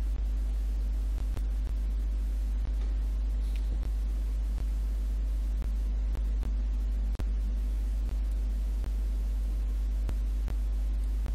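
Steady low electrical hum with a faint hiss, broken by scattered faint clicks at irregular intervals.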